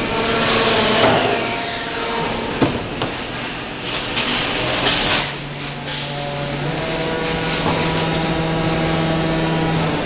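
Injection moulding machinery running on a factory floor: a steady mechanical hum and whine of several tones, with sharp clanks about two and a half and five seconds in. A low steady hum comes in about five seconds in.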